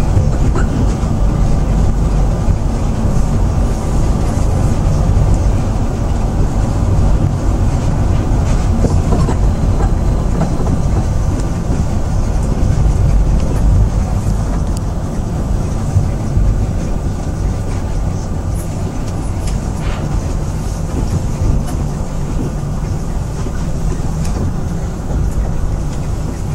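Moscow monorail car running along its track, a steady low rumble of the moving rubber-tyred train heard from inside the car.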